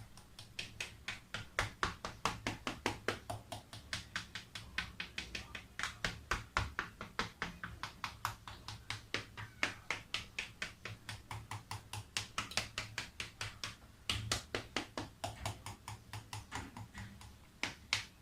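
A fork pricking rolled-out pizza dough all over, its tines tapping through to the tray in quick, even strokes of about four to five a second, with brief pauses. The dough is docked so that it does not puff up in the oven.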